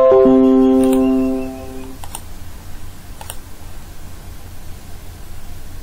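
Windows device-connected chime: a short chime of a few tones, with lower notes joining just after the first, fading out over about a second and a half, as a phone is plugged in by USB. Two faint clicks follow about two and three seconds in.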